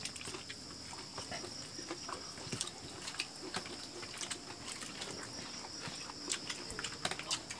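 Several people eating with their hands, chewing and lip-smacking over fried chicken and rice: irregular wet smacks and clicks.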